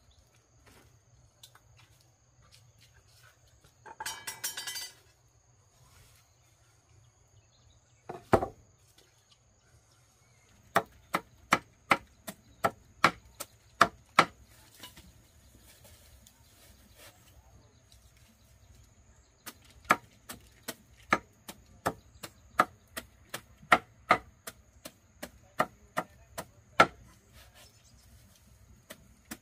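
Chopping with a blade: a run of sharp, evenly spaced strokes at about three a second, a pause, then a slower, steady run at about one and a half a second. A short rustling burst comes a few seconds in, and a single heavy thump comes about eight seconds in.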